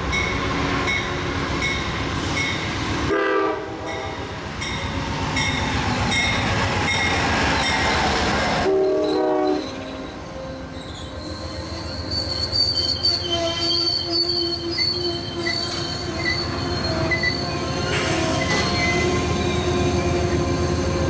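An Amtrak passenger train, led by a GE P42DC diesel locomotive, passes at speed. Its horn sounds twice, a few seconds in and again about nine seconds in. Then the passenger cars roll past with a steady rumble and a high wheel squeal.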